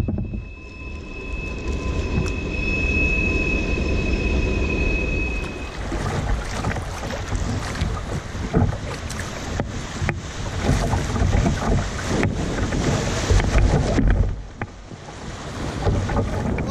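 Kayak running down a river riffle: water rushing and splashing around the hull and paddle, with wind buffeting the microphone. A steady high whine sounds over it for about the first six seconds.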